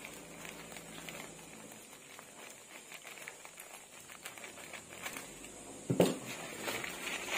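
Scissors cutting through a plastic courier mailer bag, with faint snipping and crinkling of the plastic. About six seconds in comes a single sudden loud bump, then louder rustling of the plastic bag.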